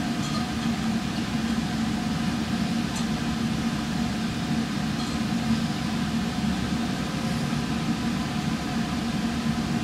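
Steady hum of a laboratory fume hood's exhaust fan, a low even drone with a faint hiss over it.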